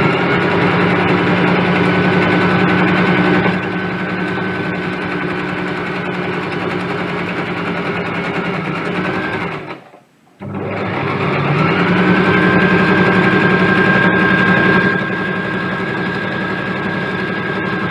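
Brother electric sewing machine stitching under foot-pedal control, its motor running steadily. It stops briefly about ten seconds in, then starts again, rising in pitch as it picks up speed.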